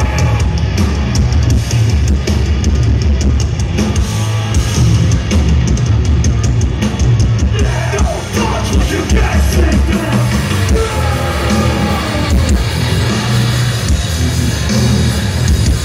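Live hardcore band playing loud and fast: distorted guitars and bass over rapid, pounding drums, with a heavy, boomy low end.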